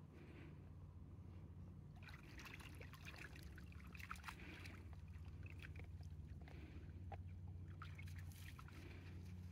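Faint splashing and trickling of shallow water as a golden retriever gets up and wades through a tidal pool, starting about two seconds in, over a steady low rumble.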